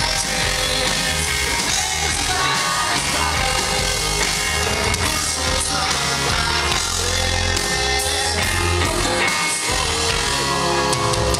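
Live rock band playing loud and continuous: electric bass, drums and guitar with singing, heard through a venue's PA from the audience.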